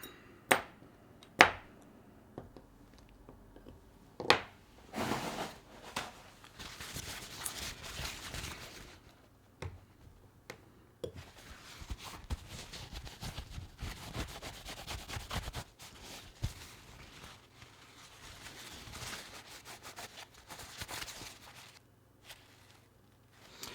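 A cloth rag rubbing hard on a steel knife part, polishing off surface marks, in long stretches of scrubbing strokes with short pauses. A few sharp clicks come in the first few seconds.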